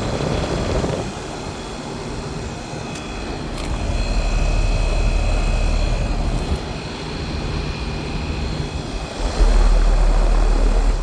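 2000 Comfortmaker Soft Sound 1.5-ton heat pump outdoor unit running in cooling mode: a steady airy condenser-fan and compressor noise with a faint high whine. A low rumble grows louder about four seconds in and again near the end.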